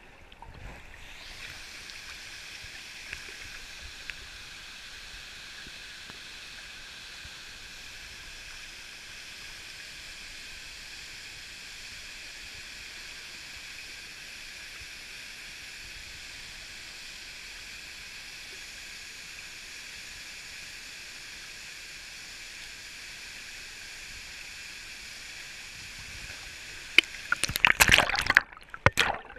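Steady high hiss of a waterfall rushing into a rocky pool. Near the end, loud, irregular splashing as water churns over rocks around the camera.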